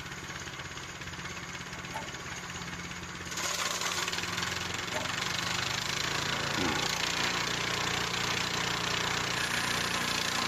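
Sawmill's small gas engine idling steadily. About three seconds in, a loud steady rushing hiss starts suddenly over it and keeps on.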